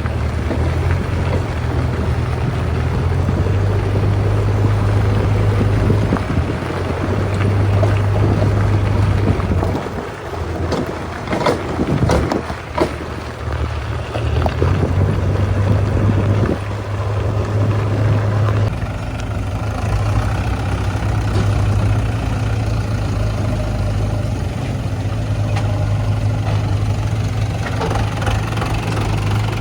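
Heavy diesel engines of a JCB 3DX backhoe loader and a tractor running, a steady low drone. A few sharp knocks come between about ten and thirteen seconds in, and the engine note turns steadier later on.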